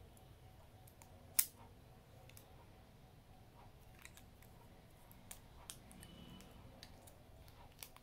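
Small plastic clicks and taps from a guide comb being handled and fitted onto a cordless hair trimmer, with one sharper click about a second and a half in and a few fainter ones later.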